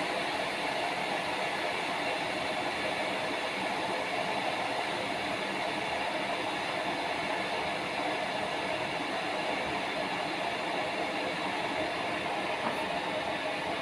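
Scarlett SC-EK27G12 electric kettle heating water: a steady rushing, rumbling noise as the water works toward the boil, with a faint tick near the end.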